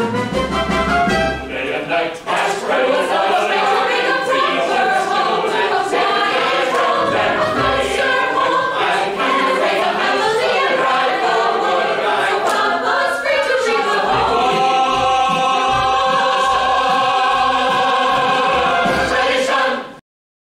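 Musical-theatre company singing in chorus with instrumental accompaniment. From about two-thirds of the way through they hold a final chord over a steady low beat, and the sound cuts off abruptly near the end.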